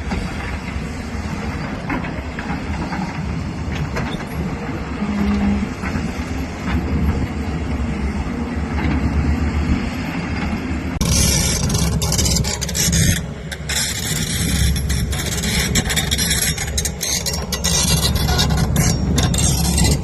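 Diesel engine of a large hydraulic excavator running with a steady low rumble. A little past halfway, a harsh hissing, crackling noise comes in over it and continues.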